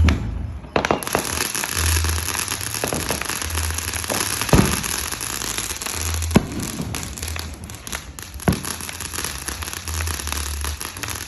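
Fireworks going off: a steady crackling hiss with several sharp bangs, the loudest about four and a half and six and a half seconds in, over the low pulsing bass of background music.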